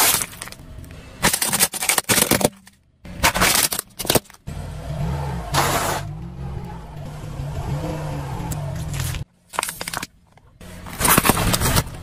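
A car tyre rolling over and crushing objects on asphalt: a series of sudden crackling crunches over the car's low engine hum, breaking off abruptly several times between short clips.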